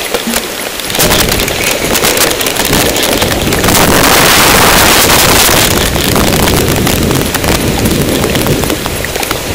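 Loud, harsh wind noise and jolting knocks on an action camera's microphone as the mountain bike rides over a rough forest trail, rising to full level about a second in.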